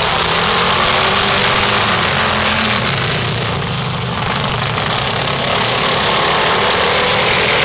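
Racing lawn mower engines running loud and steady, easing off slightly about halfway through.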